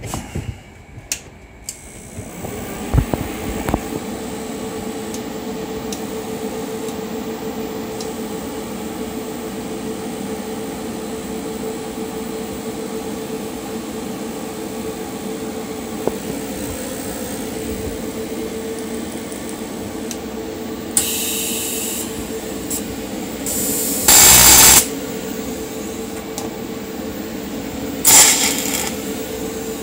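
TIG220P AC/DC inverter TIG welder switched on and running, with a steady hum and a steady whine. Near the end come three short, loud bursts of noise as the torch is triggered at the workpiece, the loudest about three quarters of the way through.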